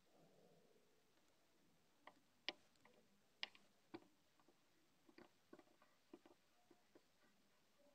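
Near silence in a small room, broken by faint, irregular clicks and taps, a few of them sharper about two and a half to four seconds in.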